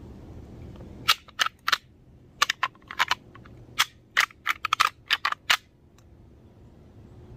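Deer rattling on a hand-held rattling call: about fifteen sharp clacks in short, uneven clusters from about a second in to five and a half seconds in. The rattling is kept light, imitating two bucks just testing each other out rather than a real fight.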